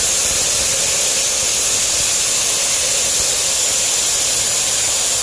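Pressurised test gas hissing steadily out through an opened hose valve as some of a 190 psi pressure-test charge is bled off; the hiss fades out at the very end.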